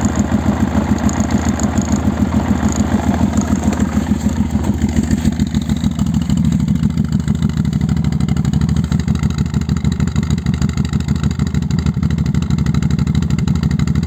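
Quad bike (ATV) engine idling steadily just after a cold start in freezing weather, left to warm up; an even pulsing idle.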